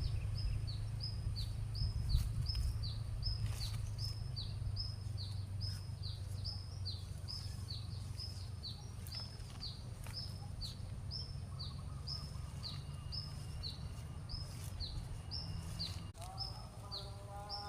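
A bird calling a long, even series of short, high, falling notes, about two to three a second, over a steady low rumble.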